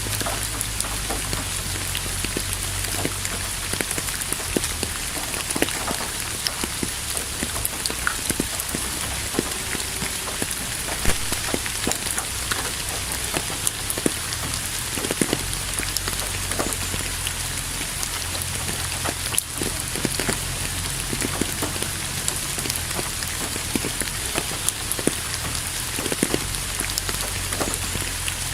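Steady rain falling on a surface, with many individual drops ticking through a continuous hiss and a low rumble underneath.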